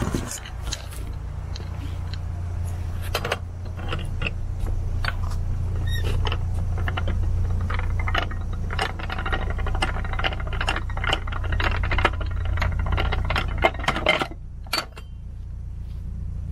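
Narrowboat engine running steadily with a low hum, overlaid by a dense clatter of small rattles and clicks that stops about two seconds before the end.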